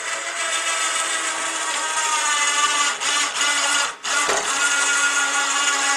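Battery-powered electric winch of a Gorillabac log lift arm whining under load as it hoists a large log. It cuts out briefly about four seconds in and starts again at a steady pitch.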